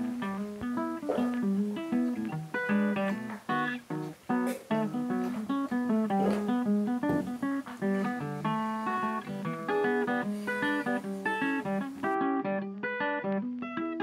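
Background music of plucked guitar, playing a steady run of picked notes over a moving bass line.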